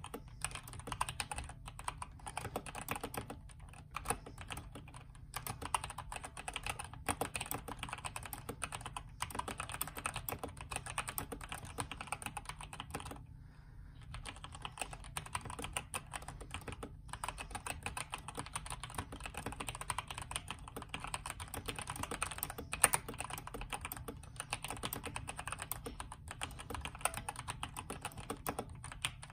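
Redragon K552 mechanical keyboard with stock Outemu red linear switches being typed on steadily, a dense stream of key strokes with a brief pause about halfway and one louder stroke later on. The case is filled with polyfill and the PCB is tape-modded, which damps the hollow ring of the board.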